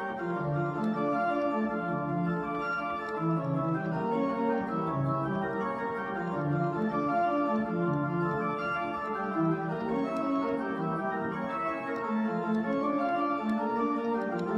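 Church organ with a two-manual console, played with both hands: several parts move together in a continuous flow of held, changing notes.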